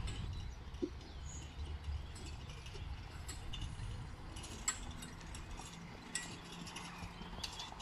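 Horse-drawn four-wheeled carriage trotting past: faint hoofbeats on soft dirt, with the carriage and harness rattling and clinking, and a few sharp clicks in the second half.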